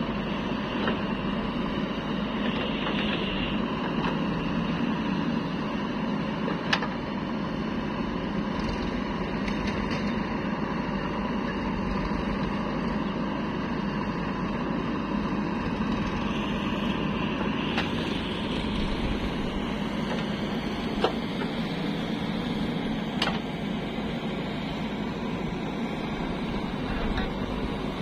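JCB 3DX backhoe loader's diesel engine running steadily while the backhoe digs soil and loads it into a tractor trolley, with a few sharp knocks along the way.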